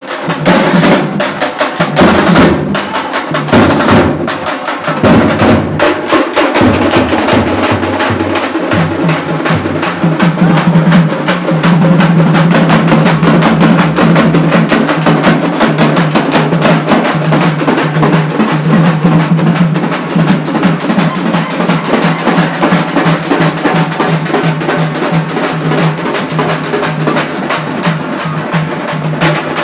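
Festival drumming: a group of drums beaten in a fast, dense, unbroken rhythm, with a steady low ringing tone joining about nine seconds in.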